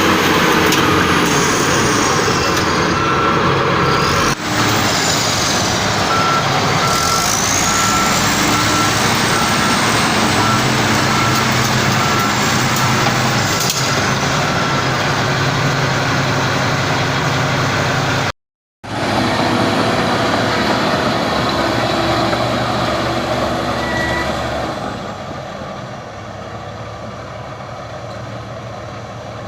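Bulldozer diesel engines running, with a reversing alarm beeping at a steady pace for several seconds in the first half. The sound cuts off briefly near the middle and gets quieter toward the end.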